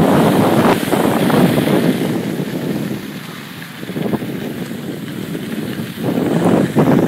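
Wind buffeting the microphone over the rushing scrape of a rider sliding across snow. It eases about halfway through and swells again near the end.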